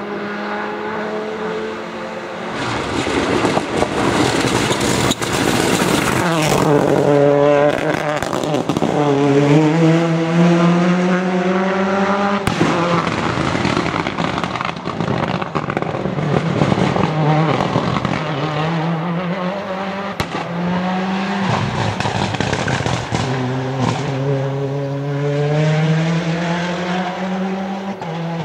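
Ford Escort WRC's turbocharged four-cylinder rally engine at full throttle, revving up through the gears with the pitch climbing and dropping back at each upshift, and a few sharp cracks.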